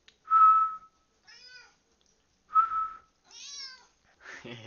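A person whistles a short steady note twice, and a tabby cat answers each whistle with a meow; the whistles are louder than the meows.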